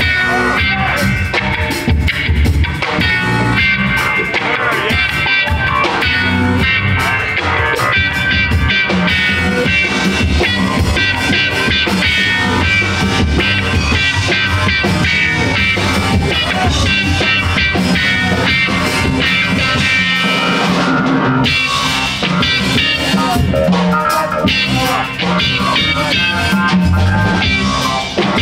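Live rock band playing an instrumental passage: electric guitar over bass guitar and a drum kit.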